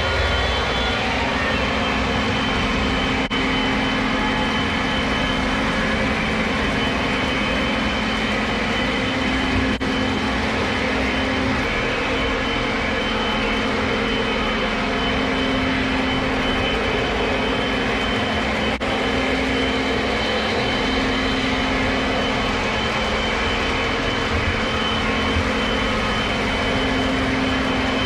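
Several Lionel O-gauge model trains running at once: a steady mix of electric motor hum and metal wheels rolling over the track.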